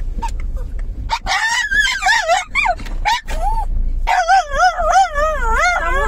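Dog in a car giving a few short yips, then two long stretches of high, wavering whining howls, over the car engine's low hum.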